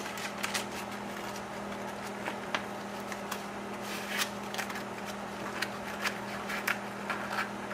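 Sandpaper rustling and crinkling as it is wrapped tightly around a brake cylinder hone, with scattered light clicks of handling. A steady low hum runs underneath.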